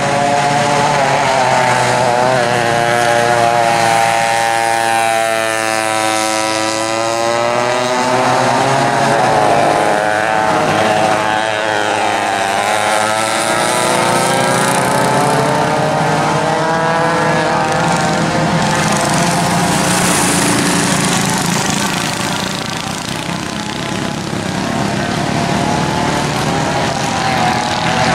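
Several vintage racing go-kart engines, modified McCulloch MC-49 two-strokes and flathead four-strokes, running hard together, their pitches gliding up and down as the karts pass and work through the corners.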